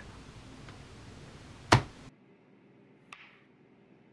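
A single sharp click a little under two seconds in. Then, about three seconds in, a chef's knife slices through a raw potato and taps the cutting board once.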